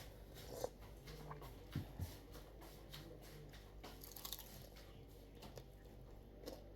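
A person eating: faint biting and chewing with scattered small clicks and taps.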